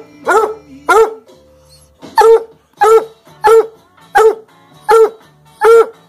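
Bluetick Coonhound barking repeatedly: about eight short, loud barks with a ringing, hound-like tone, two close together, then a pause of about a second, then a steady run of six.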